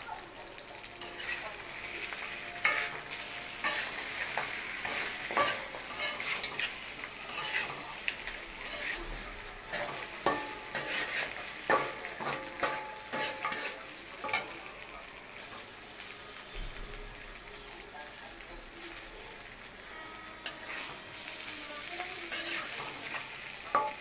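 Spiced meat and onions sizzling in hot oil in a wok, while a spatula stirs and scrapes against the pan in repeated sharp clicks. The stirring is busiest through the middle and thins out near the end.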